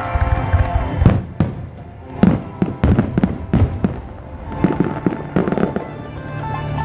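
Aerial fireworks going off in quick succession: a string of sharp bangs from about a second in through the middle, then clusters of crackling reports, with music playing underneath.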